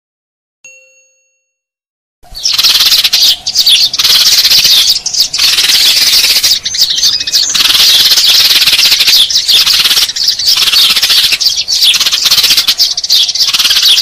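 A short electronic chime, then about two seconds in a loud, dense chorus of Eurasian tree sparrows chirping without a break, a lure-call recording used to draw sparrows in for catching.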